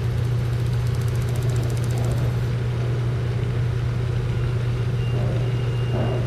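Training ship's engine running steadily alongside the quay, a low even drone.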